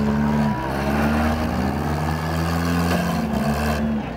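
Demolition derby car engines revving hard, pitch climbing, holding and dropping several times as the wrecked cars push against each other.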